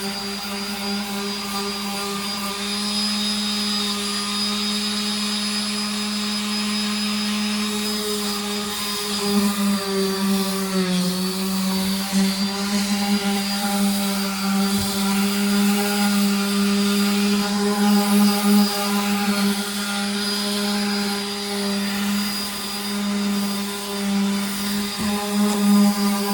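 Electric power sander running steadily while sanding down the boat, a constant motor hum whose pitch sags briefly partway through as it is pressed into the work.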